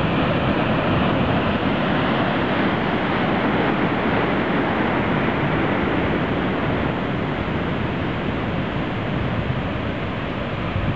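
Large ocean waves breaking close by and whitewater surf rushing up the beach, a loud steady wash of noise that eases slightly toward the end.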